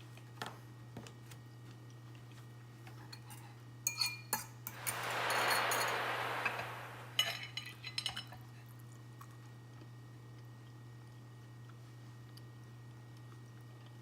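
Dishes and cutlery clinking in two short clusters, with a brief hissing rush of about two seconds between them, over a steady low hum.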